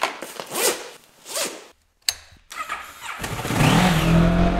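Two brief swishes and a click, then a Kawasaki Versys 650's parallel-twin engine starts about three seconds in and runs steadily.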